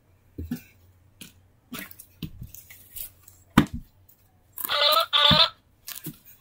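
Plush toys being handled on a carpet: soft rustles and thumps, with one sharp knock about halfway through. Near the end come two short, loud, high, wavering vocal squeals.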